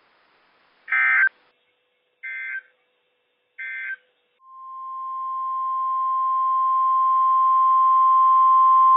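NOAA Weather Radio SAME alert header: three short bursts of digital data tones about a second apart, the first loudest. Then the 1050 Hz warning alarm tone comes in, a single steady tone that grows louder and is still sounding at the end. Together they signal that a warning broadcast is about to follow.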